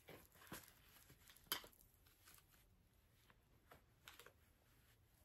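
Faint handling noise: soft rustling of a fabric scrunchie headband and its card tag turned over in the hands, a few light scattered taps, with one sharper click about a second and a half in.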